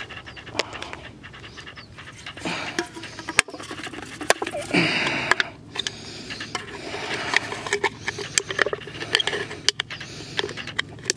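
Crushed aluminium beer can being handled and turned in the hand, the thin metal crinkling with many sharp clicks and short scrapes.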